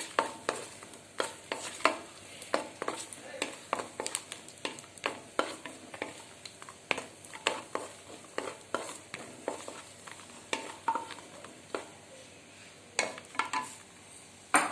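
Cashew nuts frying in a kadai while a spoon stirs them, clinking and scraping against the pan about twice a second over a faint sizzle, as the nuts are browned to a light golden colour. A couple of louder clacks of the spoon on the pan come near the end.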